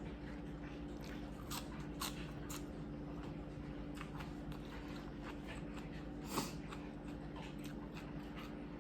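Quiet chewing and crunching: scattered faint clicks, with a sharper one about six seconds in, over a steady low hum.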